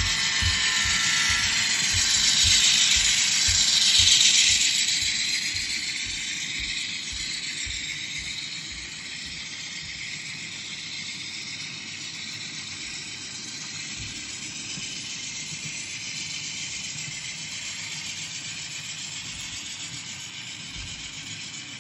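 Model train rolling past on the layout track: the locomotive is loudest as it passes, then the empty coal cars roll by with a steady rattling rumble and scattered low clicks from the wheels, slowly fading.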